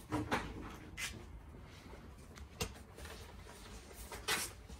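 Faint handling noises: a few scattered rustles and scrapes, with one sharp click about two and a half seconds in.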